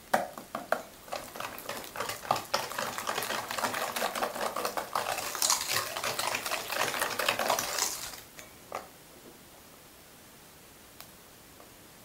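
Wire balloon whisk beating an egg into thick chocolate batter in a stainless steel bowl: rapid clicking and scraping of the wires against the metal, stopping about eight seconds in, followed by a light tap.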